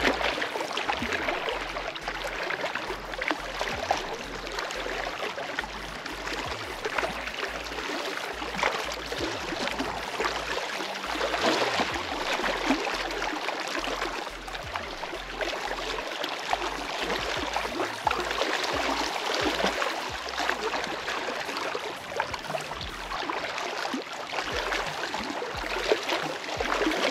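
Small waves on choppy lake water lapping and splashing, a steady wash with little irregular splashes throughout.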